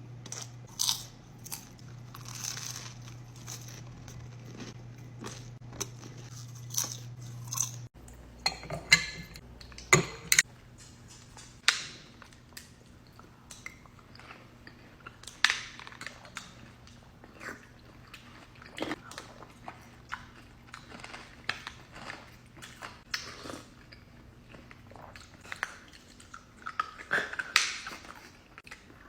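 Close-miked eating: irregular bites and chewing of crunchy food, with sharp crunches throughout. A low hum sits underneath and changes suddenly about eight seconds in.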